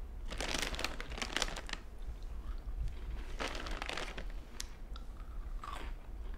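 A crinkly plastic snack-chip bag (Cheetos) rustling as a hand rummages in it, in two main bursts with a shorter one near the end and a few light clicks in between.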